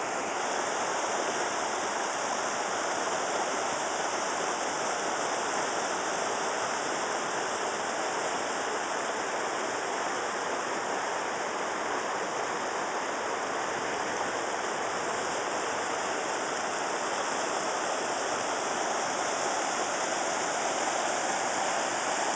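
A rocky creek rushing over stones in shallow white-water rapids: a steady, unbroken rush of water.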